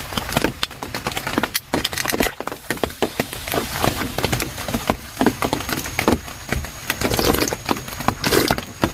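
Heavy rain drumming on a tent, a dense, irregular patter of drops hitting the fabric.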